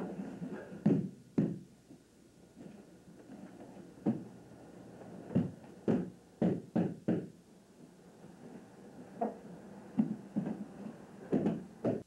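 Irregular thuds and slaps of bodies, hands and feet hitting padded gym mats during aikido throws, pins and breakfalls, about a dozen in all, with a quicker run of five a little past the middle.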